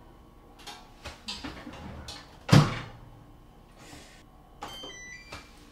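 Countertop oven door shut with a loud clunk about two and a half seconds in. Near the end come a few short electronic beeps from its control panel as the oven is set to preheat to 180 °C.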